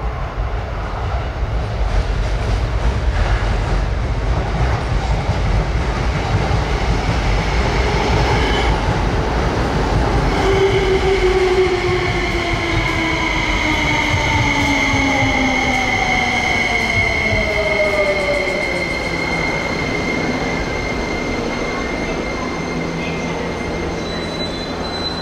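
Tsukuba Express TX-3000 series electric train pulling in and braking to a stop: wheels rumbling on the rails, and a whine from the traction motors that falls in pitch as the train slows, with a steady high squeal over it. After the train stops, a quieter steady hum remains.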